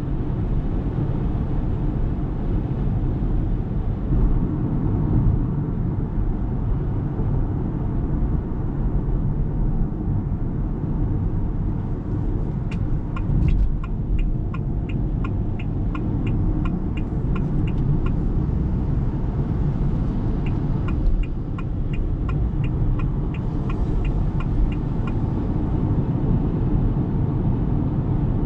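Steady low road and tyre rumble inside the cabin of a moving 2023 Ora Good Cat electric car. Partway through, and again a few seconds later, a turn-signal indicator ticks evenly for about five seconds each time, two to three ticks a second.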